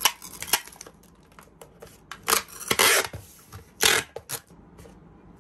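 Clear packing tape being pulled off a hand-held tape dispenser and laid over a cardboard box, in about four rasping strokes, the longest in the middle, with small clicks from the dispenser and box in between.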